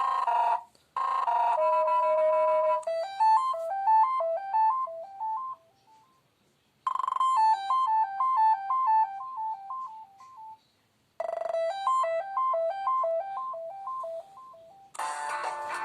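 KAZAM Trooper 2 mobile phone ringtones and message tones played one after another: short electronic melodies of quick notes stepping up and down, separated by brief pauses. A fuller, denser ringtone begins near the end.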